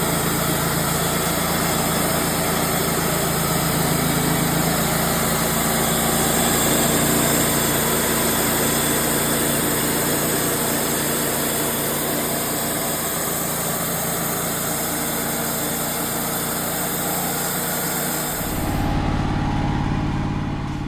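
Wood-Mizer portable bandsaw mill running, its band blade cutting through a maple log with a steady engine drone and a high hiss. The hiss cuts off suddenly near the end as the cut finishes, and the engine keeps running.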